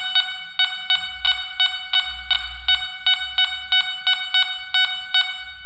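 Nokta Makro Gold Finder 2000 metal detector beeping its target tone for a coin held under the coil in discrimination mode, which cuts out iron and sounds only for non-ferrous metal. It gives a run of short, high, buzzy beeps, about three a second.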